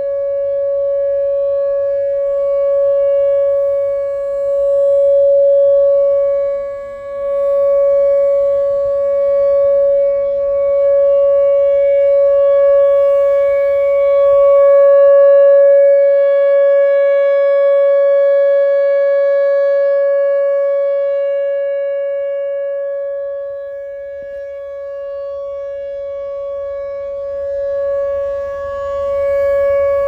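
Pole-mounted outdoor tornado warning siren with a rotating horn, sounding one steady tone that does not rise or fall in pitch. It grows louder and fainter every few seconds as the horn turns toward and away.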